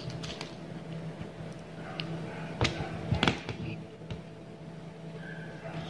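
A few light, sharp clicks of an aari hook needle against beads and a small plastic lid as beads are picked up, the clearest three coming between about two and three and a half seconds in, over a steady low hum.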